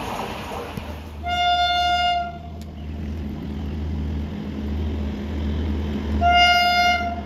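Electric locomotive's horn sounding two blasts of about a second each as the train approaches, one at about a second in and one near the end, over a steady low rumble of train running.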